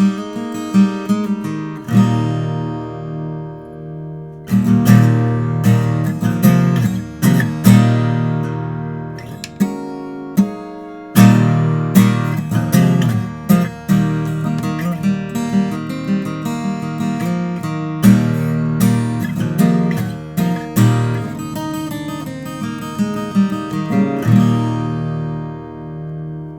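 Martin 00-28 Modern Deluxe steel-string acoustic guitar played solo, mixing picked single notes with strummed chords. It breaks off briefly partway through, and near the end a final chord is left ringing and dying away.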